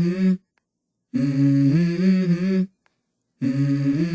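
Wordless humming vocals from a song's intro: a low voice holding and gliding between notes in phrases about a second and a half long, separated by short silences.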